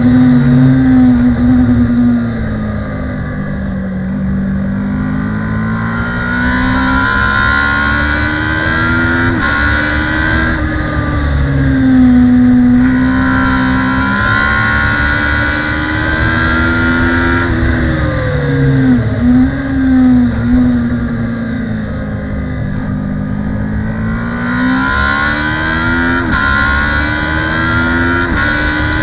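Kawasaki ER-6 (ER650) race bike's parallel-twin engine at racing speed, heard onboard. The pitch climbs under acceleration, drops sharply at each upshift, and falls away in longer glides as the bike slows for corners.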